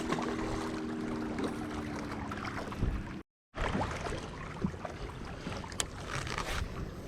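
Wind on the microphone over a steady low hum that fades out within the first three seconds; the sound drops out completely for a moment just after three seconds, then wind noise and a few small clicks go on.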